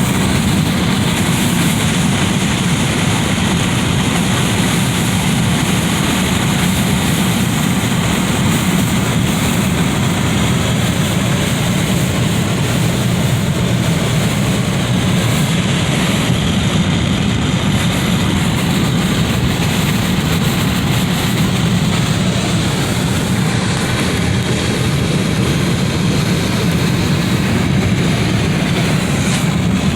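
Wind blowing through a window: a steady, loud rush of air with a low rumble, holding even with no gusts or breaks.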